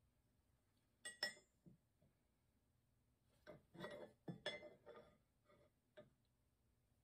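Faint metallic clinks and knocks of a forged steel tool being handled and set down: a quick pair about a second in, then a run of several light clinks a few seconds later.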